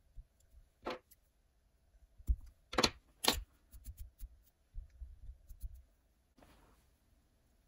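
Fly-tying handling noises: fingers working deer belly hair and thread on a hook held in a vise. Three short brushing rustles come about one, three and three-and-a-half seconds in, with scattered light clicks and a softer rustle near the end.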